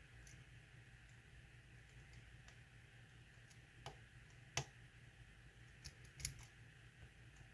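Faint scattered metallic clicks of a lock pick and tension tool working the pins inside a lock, the sharpest click about halfway through and another near the end.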